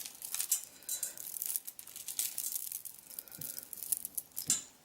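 Necklaces being handled: rustling with a run of small, quick clicks of beads and pendants against each other.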